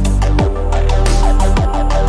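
Electronic dub music with a heavy sustained bassline, two deep drum hits, and steady hi-hats above.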